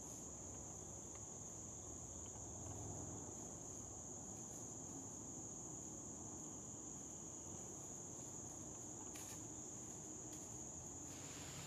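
Insect chorus in woodland, a faint, steady high-pitched drone.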